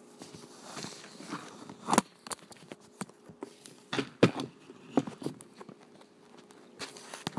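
Handling noise: scattered knocks and rustles, loudest about two seconds in and again around four seconds in, as things are picked up and moved about by hand.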